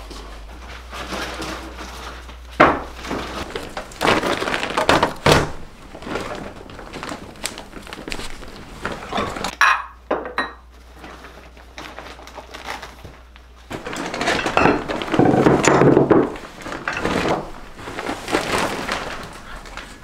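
Glassware, dishes and boxes clinking and knocking as they are lifted out of a woven plastic shopping bag and set down on a table, with rustling of the bag. There are several sharp knocks.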